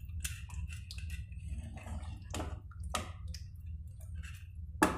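Steel ladle stirring watery chicken curry in an aluminium pressure cooker: liquid sloshing and squelching, with scattered clinks and scrapes of the ladle against the pot. A steady low hum runs underneath.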